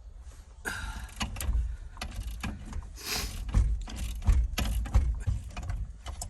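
Socket wrench with a 24 mm deep socket working a steering-wheel retaining lock nut loose: a run of irregular metallic clicks and clunks, the heaviest about one and a half, three and a half and five seconds in.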